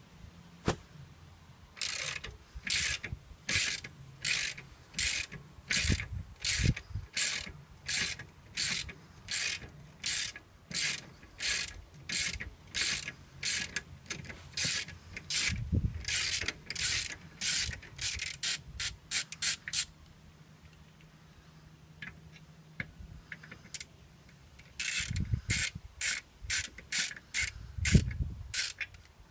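Ratchet wrench worked in steady back-and-forth strokes, each stroke a short burst of pawl clicking, about three strokes every two seconds; the strokes quicken and shorten, stop for several seconds, then start again, with a few dull knocks of tool on metal in between.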